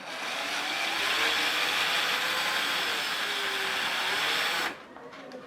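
Electric drill running steadily for about four and a half seconds, then stopping suddenly.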